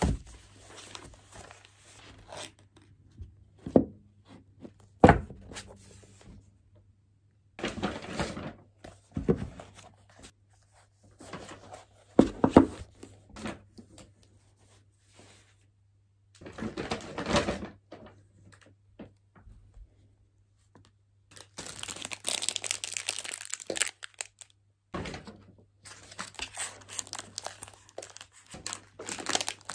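Goods and their plastic packaging being handled on a table: rustling and crinkling of plastic in short bouts, the longest about two-thirds of the way in, with a few sharp thunks as items are put down, the loudest about five and twelve seconds in. A faint steady low hum lies underneath.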